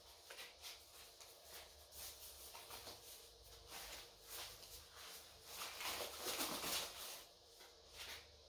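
Packaging being handled during an unboxing: irregular rustling and scraping, loudest between about five and a half and seven seconds in.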